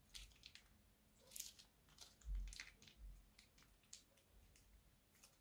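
Faint crinkling and crackling of a plastic piping bag as it is squeezed empty and handled: a scatter of short crackles, with a dull bump a little over two seconds in.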